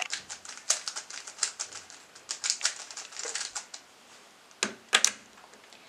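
Hands handling hard plastic objects: a run of quick, light clicks and rustles for about three and a half seconds, then two sharper clicks about a second later.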